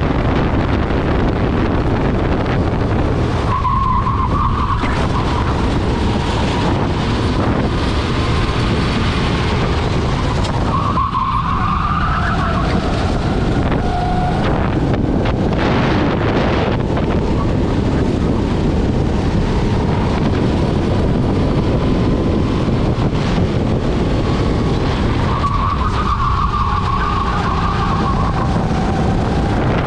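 Rental kart engine running at racing speed, heard onboard under heavy wind rush on the microphone. Short tyre squeals three times, about 4 s, 11 s and 26 s in, as the kart goes through corners.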